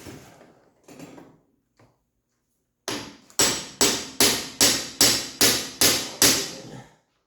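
Hammer blows on metal in a steady series of about nine strikes, roughly two and a half a second, starting about three seconds in, as parts lodged deep in a Jeep soft-top door frame are driven.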